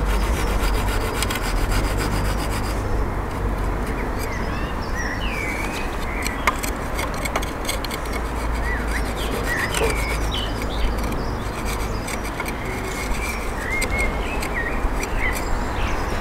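Pad saw cutting channels into the top rim of a cast aircrete (vermiculite and shaving-foam mix) rocket stove, with a steady rasping back-and-forth.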